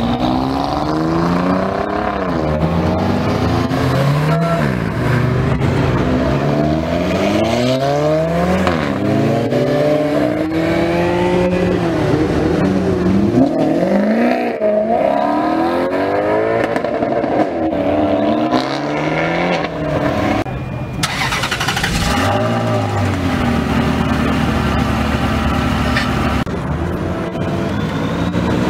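A run of sports cars accelerating hard, one after another, including an Alfa Romeo Giulia and a V8 Maserati GranTurismo. Each engine revs up in rising sweeps that drop back at each gear change and climb again. For a few seconds about three-quarters of the way in, a steadier engine note takes over.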